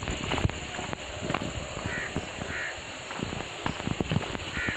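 Footsteps in sandals crunching and scuffing on a loose, stony dirt trail, with irregular knocks and scrapes. A bird gives short, harsh calls about three times from about two seconds in.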